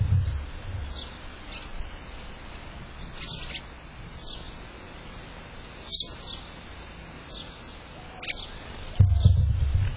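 Lesser goldfinches giving short, high, downslurred chirps every second or two at a seed feeder. A brief low rumble sounds at the very start and a louder one about nine seconds in.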